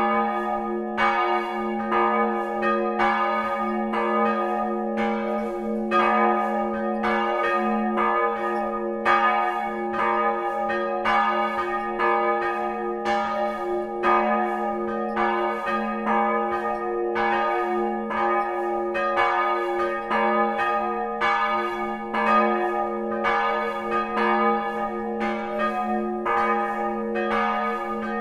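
Church bell tolling steadily, about one stroke a second, its low hum ringing on between strokes.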